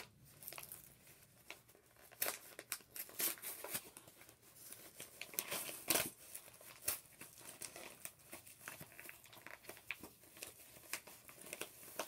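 Packaging crinkling and tearing in irregular crackles as a package is unwrapped by hand.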